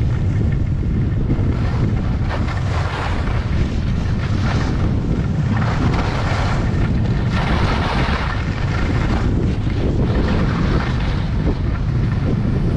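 Wind rushing over a GoPro Hero 8 camera's microphone during a fast ski run, a steady heavy rumble, with skis scraping and hissing over groomed snow in swells that rise and fade every second or two as the skier turns.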